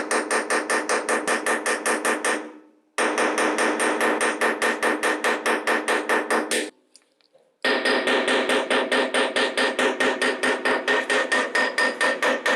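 Rapid, very even metallic tapping with a ringing tone, about six strikes a second. It cuts off abruptly twice, after about two seconds and again near the middle, then starts up again.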